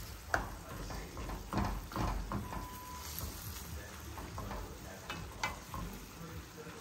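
A spoon stirring and scraping onions, tomatoes, garlic and dried red chillies in a stainless steel pan, with irregular clicks of the spoon against the pan, while the mixture sizzles over a raised gas flame as it cooks down uncovered.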